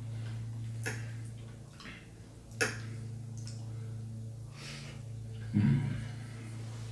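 A person eating collard greens close to the microphone: chewing and mouth sounds, with a few sharp clicks (the loudest about two and a half seconds in) and a short low vocal sound like an 'mm' near the end, over a steady low electrical hum.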